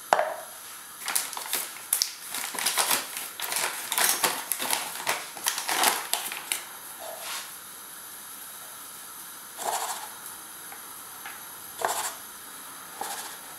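Paper bag of flour rustling and crinkling as it is handled and opened, with a knock as a plastic measuring jug is set on the counter at the start. A few softer rustles follow later as flour is poured from the bag into the jug.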